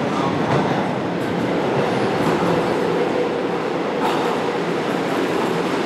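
Seoul Metro subway train running into an underground station: a steady rumble of wheels on rail with a faint steady whine, changing slightly about four seconds in.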